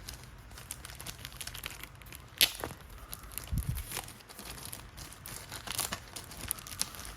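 Plastic packaging crinkling and rustling as it is handled, with a sharp snap about two and a half seconds in and a dull knock about a second later.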